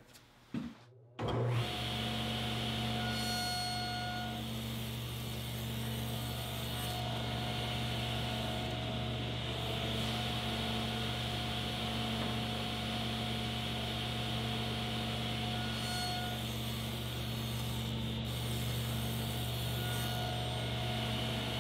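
Table saw running steadily, its blade set just over 1/8 inch high cutting shallow kerfs in half-inch MDF to form beadboard. The saw sound comes in abruptly about a second in and holds an even hum.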